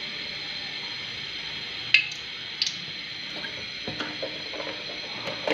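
Cooking oil poured into a hot aluminium karahi, with a steady hiss and a few sharp clicks and small crackles, the loudest about two seconds in.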